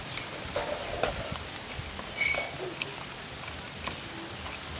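Raw small eels being rubbed and turned by hand on a plastic plate: wet slithering with many small clicks. There is a short high chirp about two seconds in.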